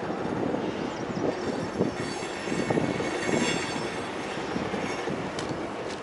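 Freight train cars rolling over a steel bridge: a steady rumble of wheels with clattering knocks over the rail joints, busiest from about one to three and a half seconds in, and a faint high wheel squeal in the middle.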